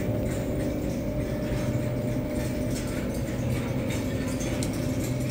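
Steady low hum of a supermarket's machinery, with several held tones, and light clicks and rattles in the second half.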